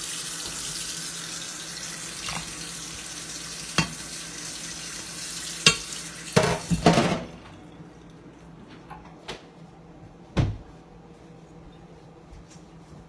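Water running steadily, cutting off abruptly about seven seconds in, with a few sharp knocks and clinks of a dish against a cooking pot as diced carrots are tipped in.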